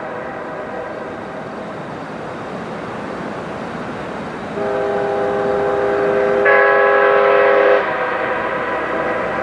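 Sand-cast Airchime K5H five-chime train horn sounding a blast, echoing off the mountains. The tail of the previous blast's echo fades, then the lower notes sound about four and a half seconds in and the higher notes join about two seconds later. The full chord cuts off sharply and leaves a long echo.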